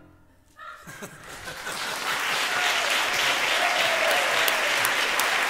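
Audience applause breaking out about half a second in, just as the band's last notes die away, and swelling within a second or so to steady clapping, with a voice or two calling out from the crowd.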